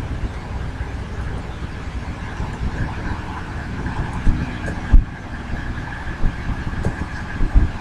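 Steady low rumbling background noise with a faint steady whine above it, broken by a few short sharp clicks, the loudest about five seconds in.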